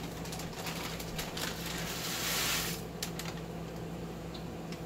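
Olive oil heating in a frying pan on a gas stove: a faint crackle with scattered light ticks over a steady low hum. There is a brief louder rush of hiss about two seconds in.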